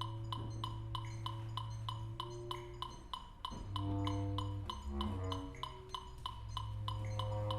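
Contemporary chamber music for bass clarinet and other players: a held low note and sustained higher tones, with a short passage of shifting pitches around the middle. Under it all runs a steady ticking pulse, about four clicks a second.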